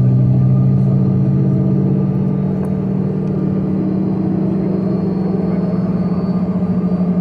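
Steady low hum inside the cabin of a Bombardier CRJ-200 regional jet with its rear-mounted CF34 turbofan engines idling on the ground. The deepest tone of the hum fades out over the first couple of seconds, and a faint high whine sits above it.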